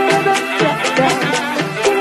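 Background music with a steady beat and melodic instruments.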